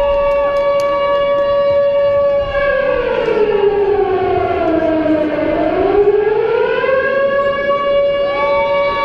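Air-raid siren sound effect in a dance soundtrack: a steady siren wail with smaller swooping tones over it. About three seconds in it slides down in pitch, bottoms out around five seconds, then climbs back to the steady pitch.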